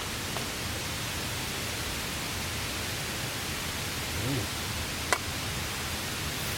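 Steady hiss of rain falling on a camping tarp, with a couple of sharp pops, one about five seconds in.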